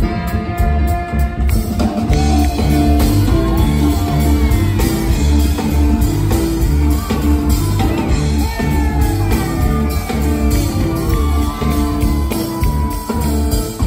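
Live band playing an upbeat song on drum kit, keyboard and guitar, with a steady beat and singing over it.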